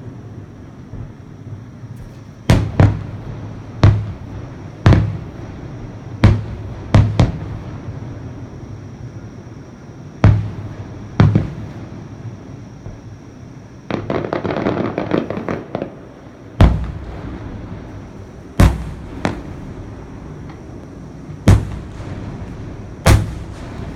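Fireworks display: sharp bangs every second or two, some in quick pairs, with a burst of dense crackling about fourteen seconds in.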